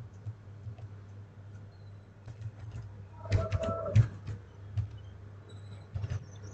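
Computer keyboard keys clicking irregularly as a password is typed, over a low steady hum, with a denser, louder run of clicks about three and a half seconds in.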